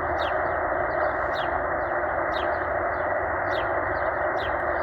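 Steady shortwave hiss from a Tecsun H-501X receiver in upper-sideband mode, with no Morse tones: the M12 numbers-station transmission seems to have ended. Over the hiss a bird repeats a short falling chirp about once a second.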